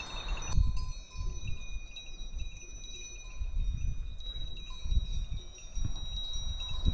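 Bells on a flock of sheep ringing and clinking, several overlapping ringing tones, with wind buffeting the microphone.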